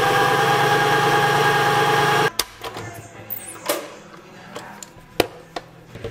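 Countertop blender motor running at a steady speed, then switched off abruptly about two seconds in. Plastic clicks and knocks follow as the lid is taken off the jar.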